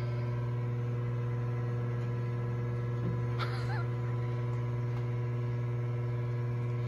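Electric motor of a Quickway OD grinder running with a steady hum: a strong low drone with many even overtones above it. A faint, brief sound comes about three and a half seconds in.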